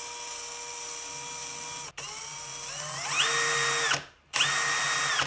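Electric drill spinning freely with no load, its bit turning in the air: a steady whine, then after a short break it speeds up with a rising whine to a higher steady pitch, stops just before 4 seconds, and starts again near the end.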